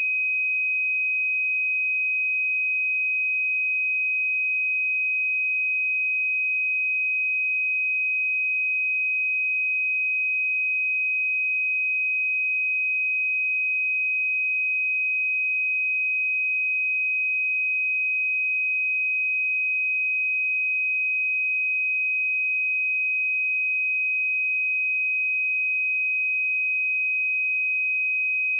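Pure 2521 Hz sine-wave test tone, held at one steady pitch and level throughout.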